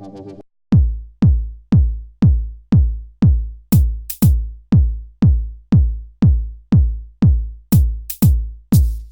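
Electronic music: a synth chord cuts off, then a steady drum-machine kick drum beats about twice a second, with a few cymbal hits over it.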